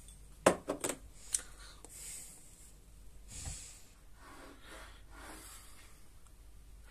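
An empty glass bottle set down on a wooden shelf: a quick cluster of sharp knocks about half a second in and one more just before a second and a half, then soft rustling handling noise.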